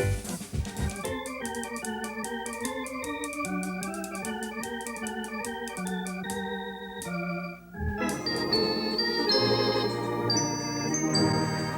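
Hammond organ playing a quick melodic passage. It breaks off briefly about seven and a half seconds in, then climbs in a rising run of high notes.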